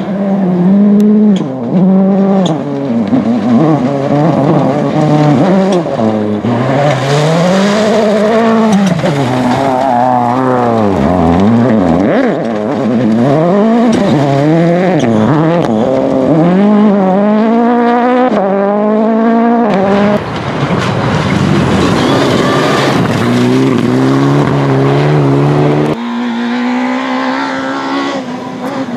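Rally cars at full speed on a gravel stage, engines revving hard and the pitch rising and falling again and again through gear changes. The sound changes abruptly twice in the later part, from one car to the next.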